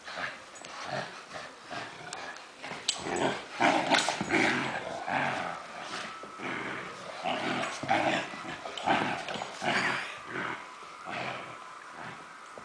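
Dogs growling in play while tugging on a strap toy, in a run of short growls in quick succession, loudest about four seconds in.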